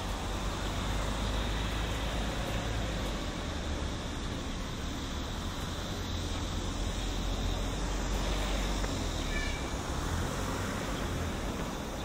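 Steady outdoor street ambience: a constant low rumble under an even hiss, with a brief faint high chirp about nine seconds in.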